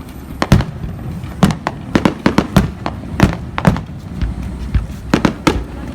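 Fireworks display going off: an uneven string of sharp bangs and cracks, two or three a second, over a steady low rumble.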